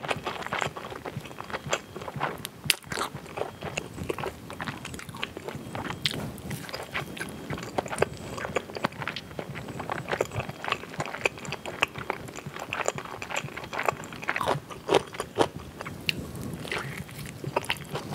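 Bites and chewing crunches of a fried Busan fishcake roll wrapped around rice cake (tteok-mari), with many irregular crisp clicks throughout.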